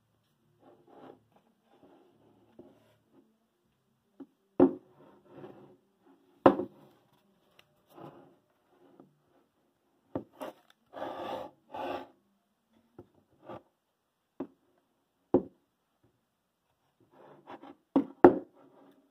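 Metal power-supply casing being handled on a wooden desk: a handful of sharp knocks as it is set down and turned over, with light rustling between and a second or so of scraping and rubbing a little past halfway.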